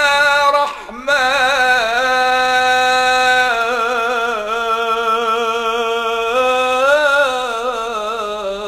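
A solo voice singing an Arabic devotional song (nasheed), drawing out long, wavering ornamented notes with a short break about a second in.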